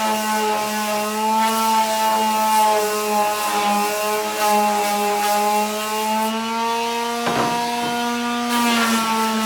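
Electric sander running on the edges of a wooden skateboard deck, its motor tone steady but sagging and recovering slightly as the wood is pressed against it, with sandpaper scratching on the wood and a brief harsher scrape about seven seconds in.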